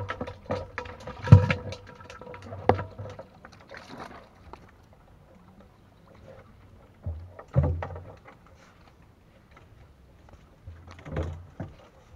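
Hollow knocks and thumps of a plastic water jug being handled and set down on dirt, four or so separate knocks with quieter scraping between; the loudest comes about a second and a half in.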